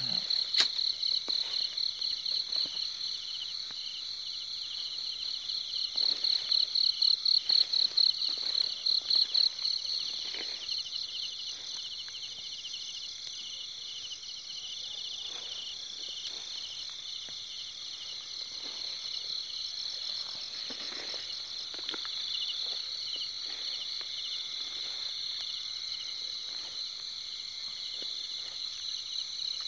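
Chorus of night insects trilling steadily, with a louder, rapidly pulsing trill from about six to ten seconds in. Faint rustling of footsteps through grass.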